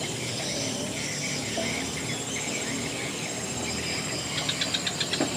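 Crickets chirping over a steady outdoor background, with a quick run of small clicks for about a second near the end.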